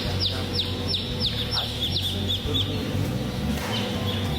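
Newly hatched Sentul chicks peeping: a quick run of short, high, falling peeps, about four a second, that thins out a little under three seconds in and picks up again near the end, over a steady low hum.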